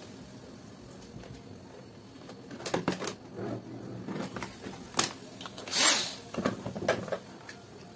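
Handling noises of a plastic three-pin mains plug and a screwdriver: scattered clicks and knocks, and a short scraping rasp a little after halfway as the screwdriver works the plug's screw to open it for a fuse check.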